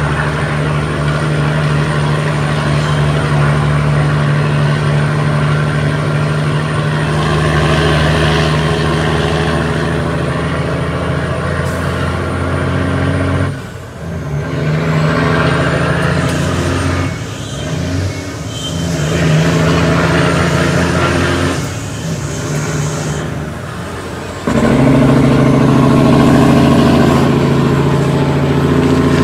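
Cummins ISX inline-six diesel of an International ProStar truck running under load. Its note dips several times around the middle, between gears on the 18-speed transmission, and comes back louder near the end.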